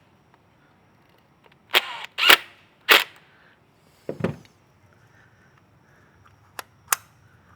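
Sharp clicks and knocks of the RV compartment latch's metal parts being handled and fitted, about six in all. The loudest are around two to three seconds in, with a duller knock about four seconds in.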